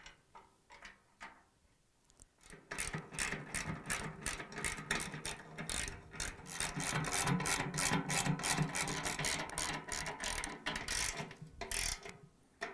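10mm socket ratchet wrench clicking as it turns bolts clockwise, tightening the spider arm onto a washer's inner tub. A few faint clicks at first, then fast, steady ratcheting from about two and a half seconds in, with a short break near the end.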